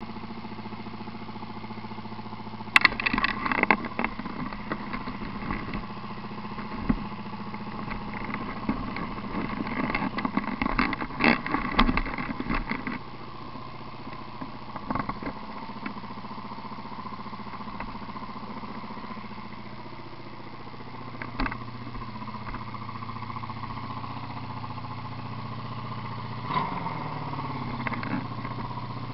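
1986 Honda VF750's V4 engine idling steadily through homemade exhaust pipes, with loud irregular knocks and rattles over it for about the first ten seconds. Near the end the throttle is blipped once, and the engine revs up briefly and drops back to idle.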